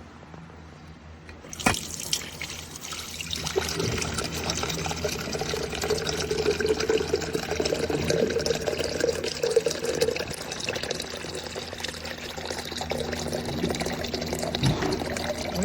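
A click about two seconds in, then water running steadily into the stainless steel pot of an electric coffee percolator as it is filled.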